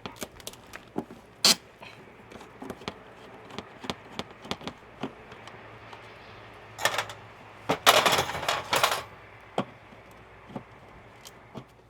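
Small metal clicks, taps and scraping from hand tools working a lock off an RV storage-compartment hatch, a lock that is a little corroded. Two longer scraping stretches come about seven and eight seconds in.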